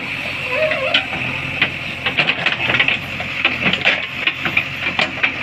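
JCB 3DX backhoe loader working in mud: irregular knocks and clatters come thick and fast over a steady high hiss.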